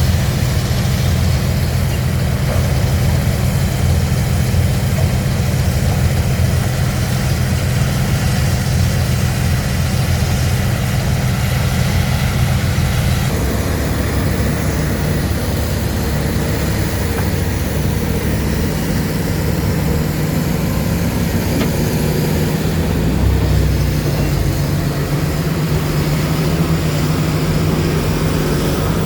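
Heavy diesel engines of a dump truck and excavator running steadily, the engine note shifting about halfway through.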